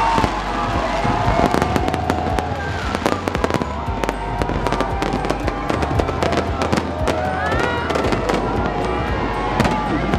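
Fireworks going off in a rapid, irregular string of bangs and cracks, with a crowd's voices underneath.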